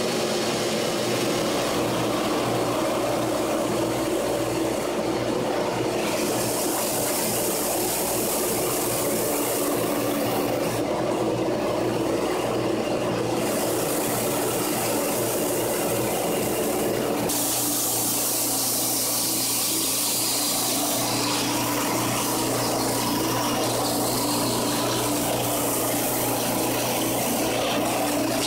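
Homemade 6x48 belt sander running steadily under its electric motor, with the hiss of wood being sanded on the moving belt coming and going.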